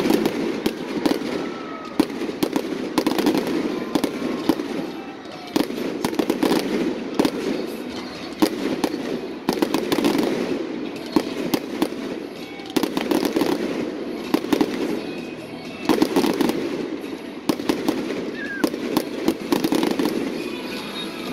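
Aerial fireworks display: shells bursting in an irregular run of sharp bangs and crackles.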